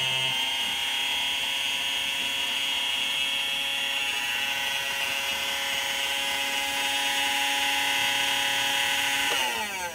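Oster electric lather machine's small motor running with a steady whine while it whips up lather, then switched off near the end and winding down with a falling pitch.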